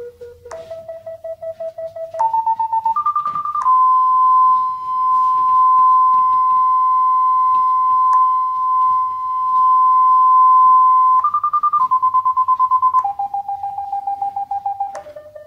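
Parking-sensor warning beeps from the FenSens app on a smartphone's speaker: rapid beeping that steps up in pitch as the sensor nears a wall, then a continuous tone for about seven seconds, the signal for an obstacle very close. Near the end it turns back into beeping that steps down in pitch as the obstacle gets farther away.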